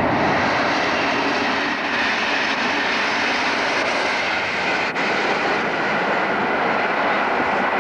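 Passenger train passing at speed: a loud, steady rushing noise of engine and wheels on rail.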